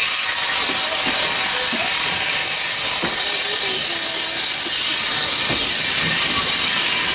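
Steam locomotive letting off steam in a loud, steady hiss.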